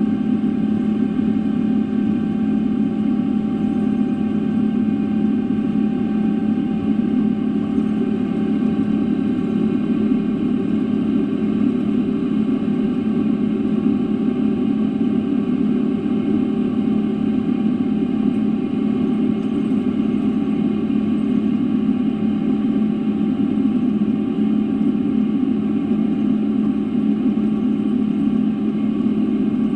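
Steady jet engine and airflow noise heard inside the passenger cabin of a Boeing 777-300 airliner: a constant low rumble with a faint steady whine above it, unchanging throughout.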